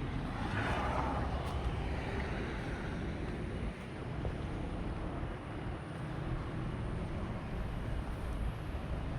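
Road traffic: a vehicle passes about a second in and fades away, over a steady low traffic rumble.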